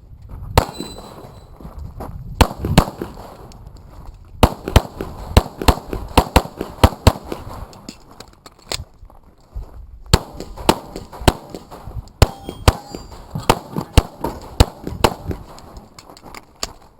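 Pistol shots fired in rapid strings at a practical shooting stage, with steel targets clanging as they are hit. The firing breaks off for about two seconds just past the middle, then resumes.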